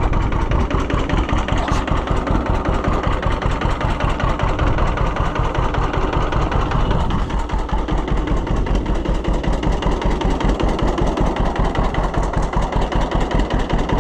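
Two-cylinder tractor engine running on its own with an even, pulsing beat, just after a choked start. It is being left to settle to idle, and the upper sound eases a little about halfway through.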